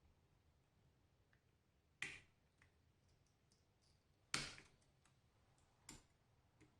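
Near silence broken by a few short, sharp clicks, the clearest about two, four and a half and six seconds in: an iPhone and small repair tools being handled on the bench while it is switched off and opened to take the battery out.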